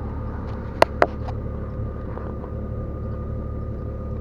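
Two sharp clicks close together about a second in, then a fainter one, from plastic and metal dash trim being handled, over a steady low hum.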